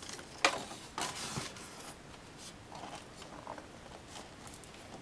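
Plastic covers of a Canon PIXMA iP110 portable inkjet printer being handled and flipped open: a sharp click about half a second in, then about a second of scraping, then a few light taps.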